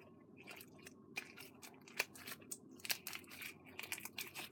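Sticky borax-and-clear-glue slime being kneaded and pulled in the hands, giving faint, irregular clicks and crackles.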